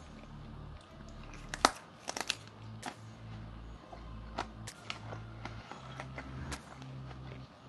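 Crunching and crackling of someone biting and chewing crunchy green onion wraps, in irregular sharp clicks, loudest about a second and a half in and in a quick cluster just after.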